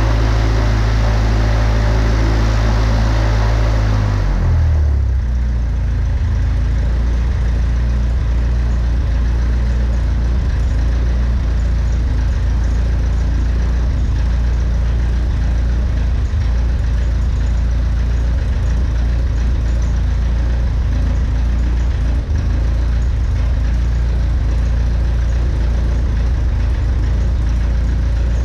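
Freshly rebuilt piston engine running on its first start. About four seconds in, the louder, brighter running falls away and it settles into a steady low idle.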